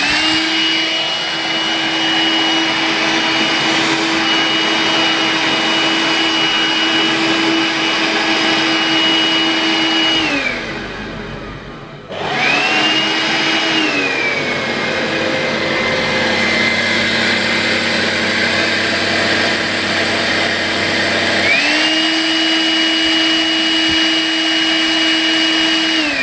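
Makita CL182FD 18V cordless stick vacuum running with a steady high whine. It winds down and stops, starts again, drops to a lower speed for several seconds, then speeds back up to the higher whine. This is the cleaner whose motor had developed an abnormal noise after about 200 hours of use.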